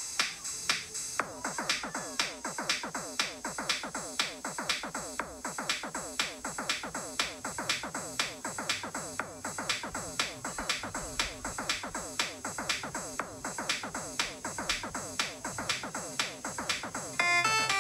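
Synth-driven electronic music made in the Figure app, with a steady drum-machine beat and quick falling synth notes. Just before the end it gets louder as a bright synth melody comes in.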